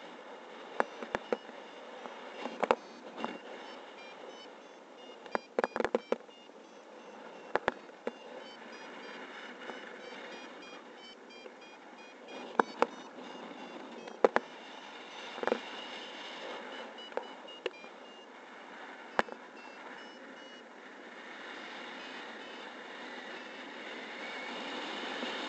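Wind rushing over a paraglider's camera microphone in flight, growing louder over the last few seconds, with a dozen or so sharp cracks. Faint rapid beeps from a flight variometer step up and down in pitch through most of it.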